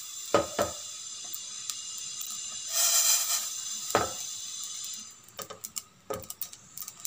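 Cumin and fenugreek seeds dry-roasting in a steel pot: a steady hiss with a few sharp clinks of a spoon stirring against the metal, then scattered small crackles near the end.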